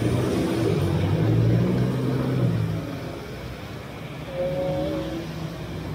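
A motor vehicle's engine hums loud as it passes on a rain-soaked street, fading after about two and a half seconds, over a steady hiss of heavy rain and wet road noise.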